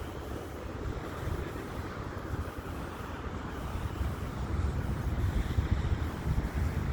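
Street traffic passing on a city street: a steady low rumble that grows louder about four seconds in.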